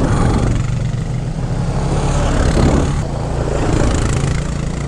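Honda CRF300L's single-cylinder engine idling steadily, mixed with the engines of another dirt bike and an ATV running on the trail.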